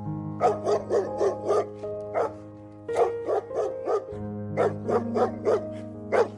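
A dog barking in quick runs of short yips, several a second, in four or five bursts, over soft background music with sustained tones.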